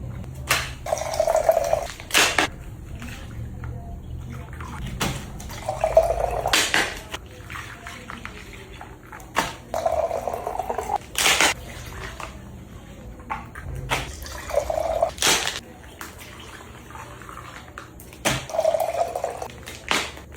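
Liquid being poured into a container in short pours, five times, each pour ending with a sharp knock as the container is set down.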